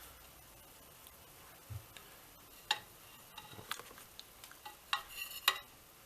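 A few scattered light clicks and scrapes, like a utensil tapping and prodding on a plate, against quiet room tone.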